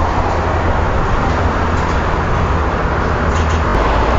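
Steady traffic noise from a busy multi-lane highway, with a low rumble underneath.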